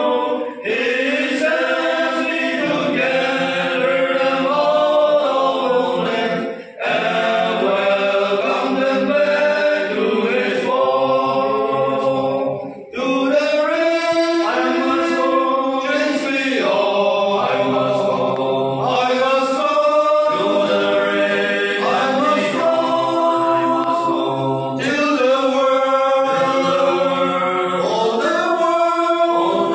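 A group of men singing a hymn together from song sheets, unaccompanied, in long held phrases with short breaks between lines in the first half.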